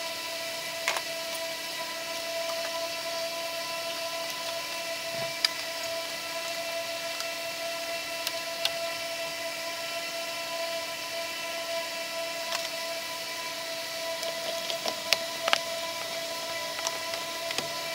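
Scattered sharp plastic clicks and light knocks as engine vacuum hoses and electrical connectors are pushed back into place, about eight over the stretch, with a cluster near the end. Under them runs a steady electrical hum.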